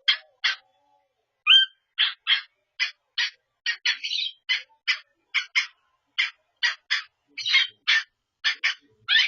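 Cockatiel giving a run of short, sharp notes, about three a second and often in pairs, with a brief whistled glide about a second and a half in and a rising note near the end.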